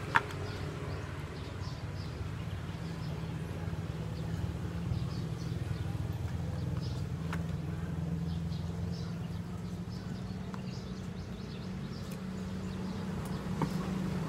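A steady low mechanical hum, with a few faint clicks and cracks of crab shell being picked apart by hand.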